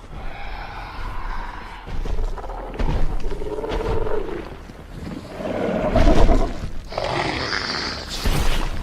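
Skullcrawler monster sound effect: continuous deep, rumbling growls that swell into a loud roar about six seconds in, followed by a higher, harsher screech near the end.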